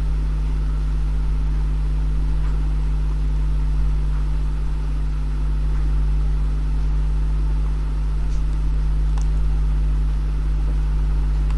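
Steady low hum with a hiss above it and a few faint clicks.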